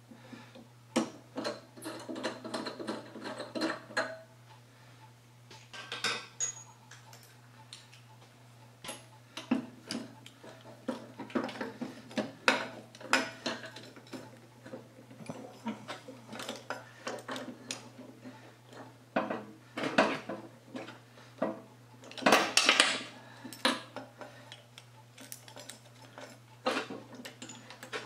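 Irregular clinks, clicks and knocks of steel parts and hand tools being handled on a workbench, some with a brief metallic ring, the loudest cluster near the end.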